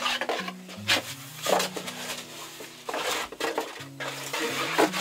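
Cardboard box being opened by hand, with rustling, scraping and several knocks as a plastering spatula is pulled out of its packaging, over background music with held, stepping notes.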